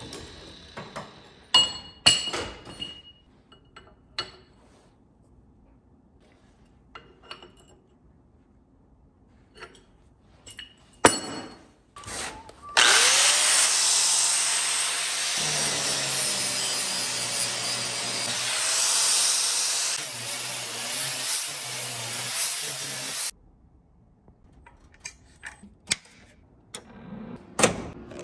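A few sharp metal clanks and knocks, then an angle grinder with an abrasive disc runs loudly for about ten seconds, grinding steel, its hum dipping a little as it bears on the work, before it cuts off.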